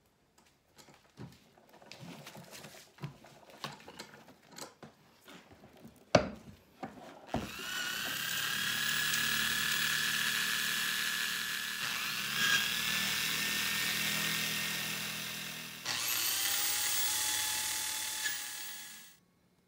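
A small electric motor, like a power tool's, running in long whining runs. It spins up about a third of the way in, dips and picks up again, restarts near the end with a higher whine, then stops. Before it there are light knocks and clatter, with two sharper knocks.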